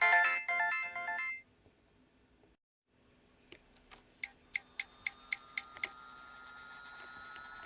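Nokia 5140 mobile phone playing a ringtone melody through its loudspeaker, which stops about a second and a half in. After a short pause come two faint clicks, then seven quick, evenly spaced beeps, followed by a faint steady tone.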